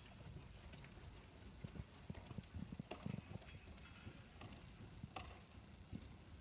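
Faint, muffled hoofbeats of a trotting Dutch/Thoroughbred cross gelding on deep sand footing, with a run of louder thuds about two to three seconds in.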